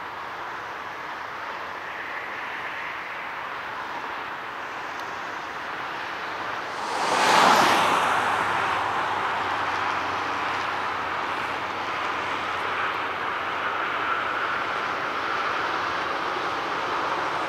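Jet airliner engine noise, a steady rushing sound with a whining edge. About seven seconds in it swells suddenly and loudly, then dies away slowly.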